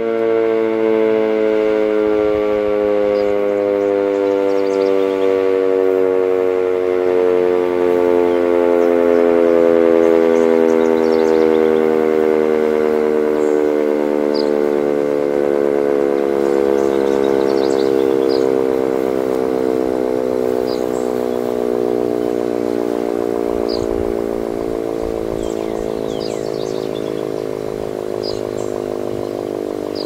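Sentry 10V mechanical outdoor warning siren winding down: its loud, many-toned wail slides slowly and steadily lower in pitch and fades gradually toward the end as the rotor coasts down.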